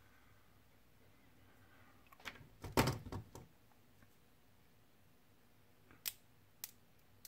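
Clatter and rustle of hobby tools and small plastic model parts being handled on a cutting mat about two to three seconds in, then two sharp snips about half a second apart as flush cutters clip plastic parts off a sprue.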